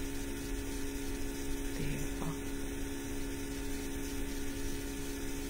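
Steady electrical hum, made of a few constant tones, with one spoken word about two seconds in.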